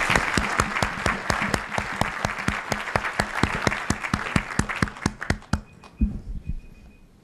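Audience applauding: dense clapping that thins out and dies away about five and a half seconds in, leaving a few scattered last claps.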